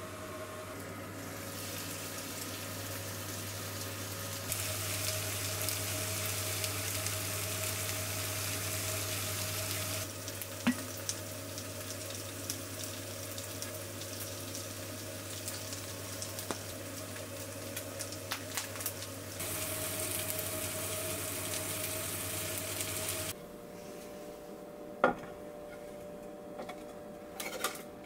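Gyoza sizzling in a frying pan, a steady hiss with a low hum under it, its level stepping up and down a few times. About 23 seconds in the sizzle stops, and a few knocks follow as a plate is set over the pan.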